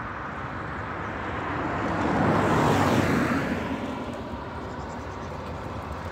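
A car passing by on the road, its noise swelling to a peak about three seconds in and then fading away, over a steady background hum of traffic.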